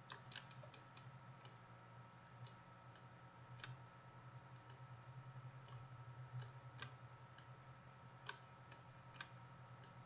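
Faint computer mouse clicks, about twenty irregular single clicks over a low steady hum.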